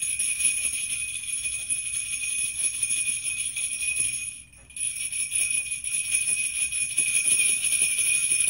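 Handheld ring of small jingle bells shaken continuously, a steady bright jingling that stops briefly just after four seconds in and then starts again.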